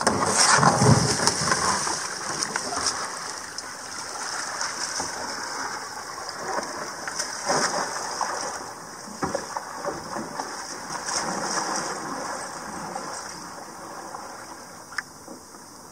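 Water splashing: a loud splash right at the start, then continued splashing and paddle strokes from a person in the water beside a sea kayak.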